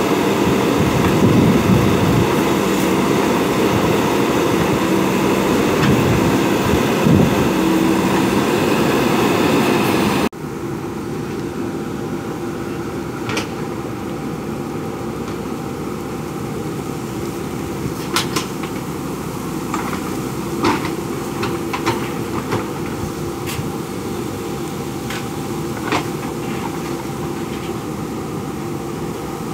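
Diesel engine of a JCB backhoe loader running steadily. About ten seconds in the sound cuts abruptly to a quieter engine with scattered sharp knocks.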